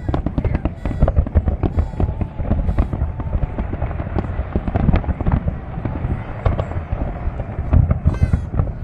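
Fireworks display: a dense, continuous barrage of bangs and crackling shell bursts, with deep booms.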